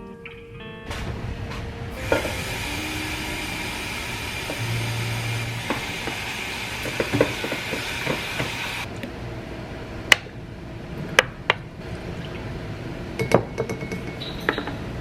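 Kitchen cooking sounds: a steady rushing hiss for about seven seconds, then dishes and utensils clinking and clattering several times.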